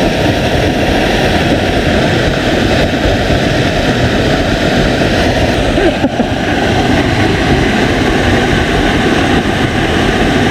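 Waterfall rushing: a loud, steady noise of falling water, with a brief dip about six seconds in.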